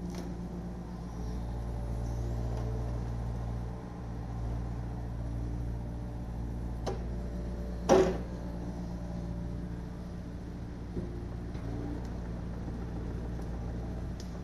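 Yanmar SV40 mini excavator's diesel engine running at a steady speed, with one loud clank about eight seconds in and a couple of lighter knocks around it.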